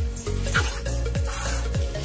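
Background electronic music with a steady beat and a deep bass note that falls in pitch about twice a second.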